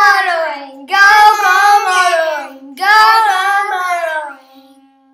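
A high voice singing three short phrases, each sliding down in pitch, the last ending on a held note that fades away.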